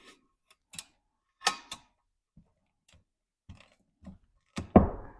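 Workshop handling noises while pipe is being measured: a string of separate clicks and knocks, irregularly spaced, with a heavier knock near the end.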